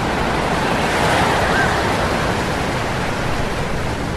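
Heavy ocean surf crashing on a beach, a continuous wash of breaking waves that swells a little about a second in.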